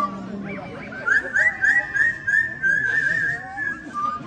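Yellow-naped Amazon parrot whistling an improvised tune: a few gliding whistled notes, then a long wavering whistle with a quick trill, which breaks off just before the end.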